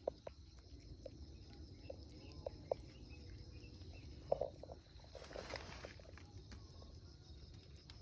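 A puppy chewing corn seedlings: scattered short crunches and a brief rustle about five seconds in, over a steady chirring of crickets.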